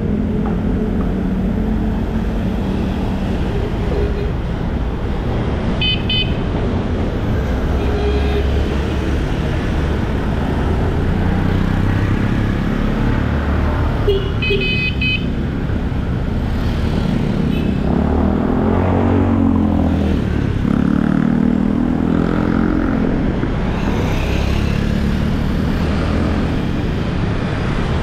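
City street traffic heard from a moving bicycle, with steady road and wind rumble and cars and motorcycles running nearby. Short horn beeps sound about six seconds in and again around fourteen seconds, and a motorcycle engine passes close, rising and falling, in the second half.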